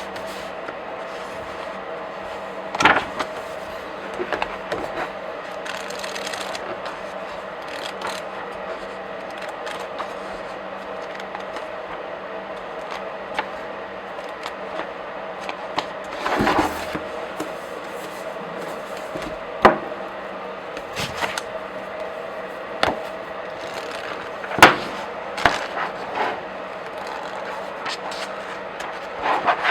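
Pages of comic books and graphic novels flipped by hand: irregular paper rustles and crisp snaps as the sheets turn, a handful of them sharper and louder than the rest, over a steady low hum.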